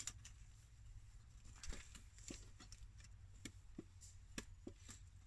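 Faint rustling and scattered small clicks of a mesh bag being worked down over a lidded cook-pot kit.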